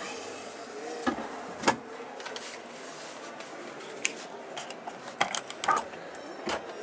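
Scattered light clicks and knocks, bunched together about five seconds in, as an interior door's handle and latch are worked and the door swings open, over a steady low hiss.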